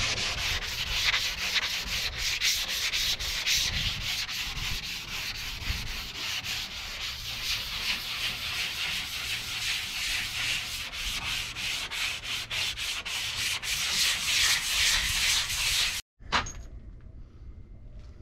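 Hand sanding of a body-filled truck cab door with a sanding sponge: rapid back-and-forth rasping strokes. The sanding cuts off suddenly near the end, followed by a single sharp click.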